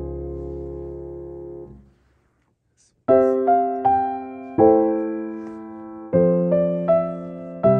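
Background piano music: a held chord dies away, about a second of silence, then the piano resumes with a run of struck notes and chords.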